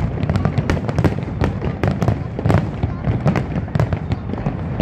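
Dense barrage of aerial firework shells bursting, many sharp reports a second over a continuous low rumble of booms.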